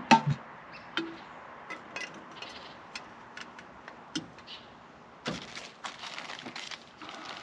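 Handling noise: scattered light clicks and knocks of objects being moved and set down, with a rustling stretch a little past five seconds in.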